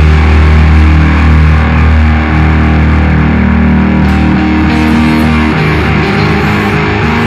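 Loud rock band music with distorted electric guitar over held low bass notes, moving to a new chord about five and a half seconds in.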